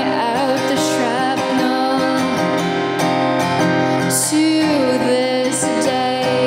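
A woman singing a song live, accompanying herself by strumming a steel-string acoustic guitar. Her voice wavers and glides over the steady guitar, settling into a held note about five seconds in.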